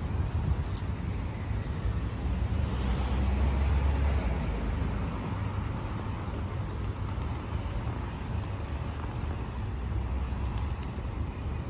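Street traffic: a steady low rumble, swelling as a vehicle passes about three to five seconds in, with a few faint light clicks.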